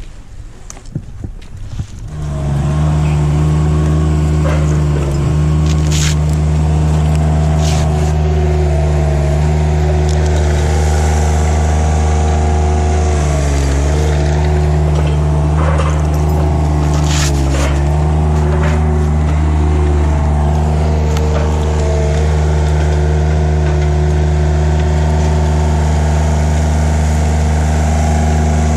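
An engine running steadily at a constant speed, coming in loudly about two seconds in, with a few short clicks over it.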